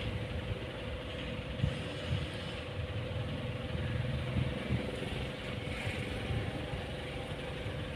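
Steady low rumble with a faint steady hum.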